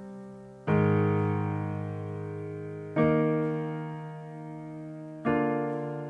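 Background music: slow piano chords, three in turn, each struck and left to ring and fade before the next.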